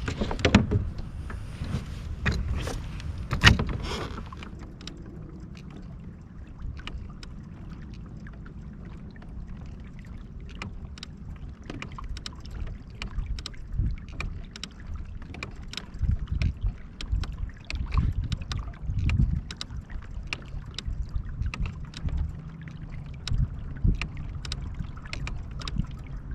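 Fishing kayak under way on the water. There are a few loud knocks in the first four seconds, then a steady run of light clicks and taps over a low rumble.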